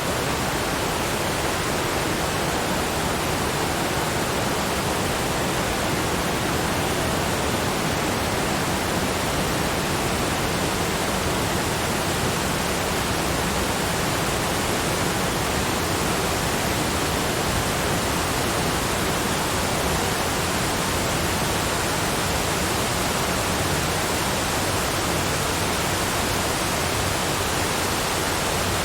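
Waterfall, a steady rushing of falling water spread evenly from deep to high pitches, unchanging throughout.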